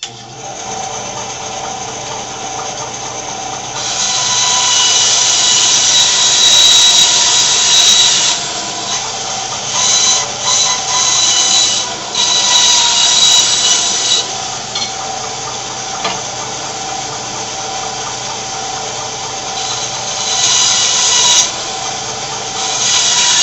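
Bandsaw starting up and running steadily, with a few louder stretches of the blade cutting through a glued-up block of wood to trim its ends.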